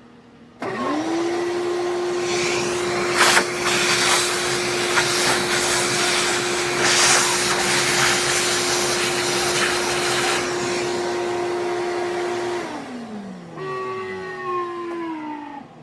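Vacuum cleaner switched on, running steadily while it sucks engraving chips out of a freshly CNC-carved piece, with a few sharp crackles of debris. It is switched off about three seconds before the end and winds down with a falling whine.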